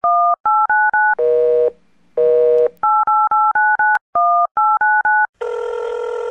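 Touch-tone telephone keypad dialing: quick runs of two-tone DTMF beeps, broken by two short buzzy tones about a second in, then more beeps and a steady telephone line tone from about five and a half seconds in.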